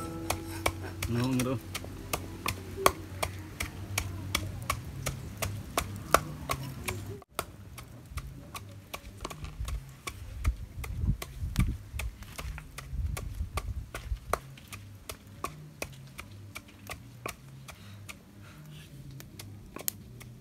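Wooden pestle pounding in a wooden mortar, steady knocks about two a second, over background music with a slow low bass line.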